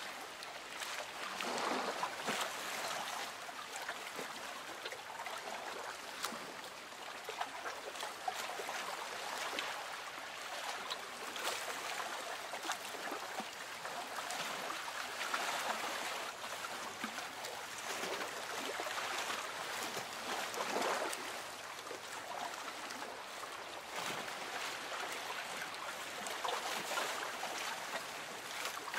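Lake water gently lapping against a small boat's hull, rising in soft swells every few seconds, with small splashes and trickles.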